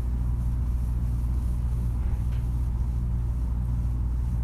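Steady low hum of room background noise, with a faint tap about two seconds in.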